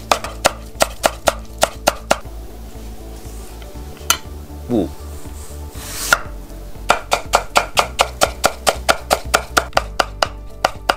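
Global SAI stainless kitchen knife chopping fast on a wooden cutting board, each stroke a sharp knock, about five a second. It slices cucumber first, then after a pause finely julienne-cuts daikon radish at the same even pace.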